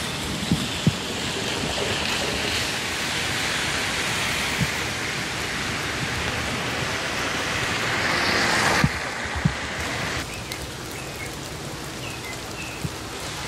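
Budd rail diesel car rolling slowly on newly restored siding track: a steady diesel running noise and wheel-on-rail rush, with occasional sharp knocks from the wheels and track. The noise builds a little as the car nears, then drops suddenly about nine seconds in.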